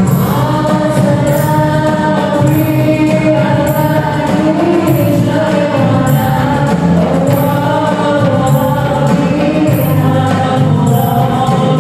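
Sholawat (Islamic devotional song) in qasidah style: voices singing a melody with long held notes, over keyboard and a steady percussion beat.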